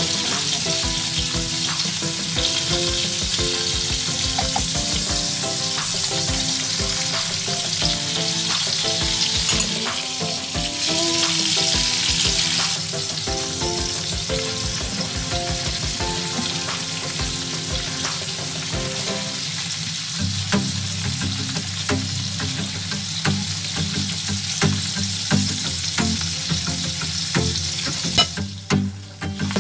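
Tuyo (dried fish) frying in oil in a pan, a steady sizzle with many small clicks and scrapes of a utensil turning the fish against the pan. The sound dips briefly just before the end.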